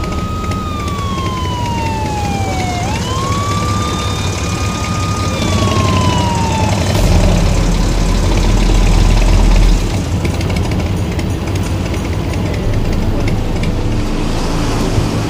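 Police motorcycle siren wailing, slowly falling and rising in pitch, over engine and traffic noise, as a signal to the truck ahead to pull over. The siren stops about seven seconds in, and a deep engine rumble follows for a few seconds.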